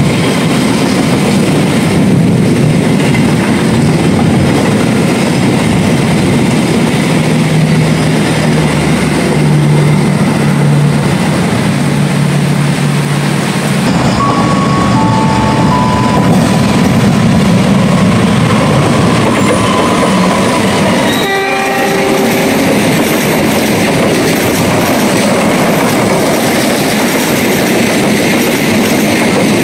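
Passenger trains running past: first a locomotive-hauled train rumbling across a bridge, then a second train approaching. Its horn sounds and drops sharply in pitch as the locomotive passes, and the carriages then rush by with wheels clattering on the rails.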